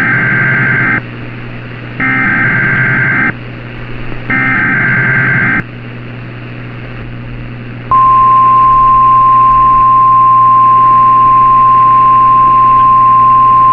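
Emergency Alert System broadcast: three squawking digital header bursts about a second each, then, about eight seconds in, the long steady single-pitch weather-radio warning alarm tone. A constant hum and static hiss sit underneath.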